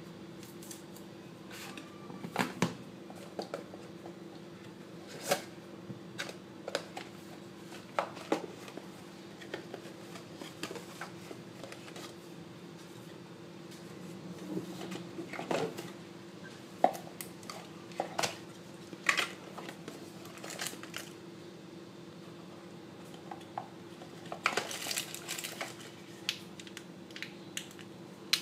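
Handling noise from unboxing a smartphone: irregular taps, clicks and brief plastic rustles as the cardboard accessory box is handled and the charger and cable are lifted out, over a steady low hum.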